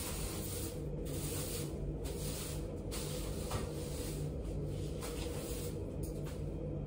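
A steady low hum with faint rustling and shuffling as someone moves about close by.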